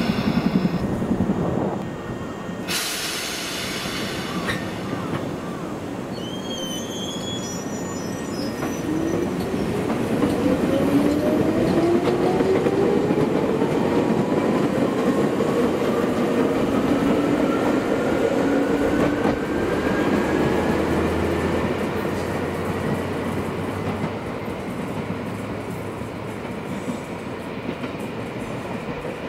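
Train passing on rails, its rumble swelling and then easing off, with a whine that climbs steadily in pitch for about fifteen seconds. A brief sharp sound comes about three seconds in.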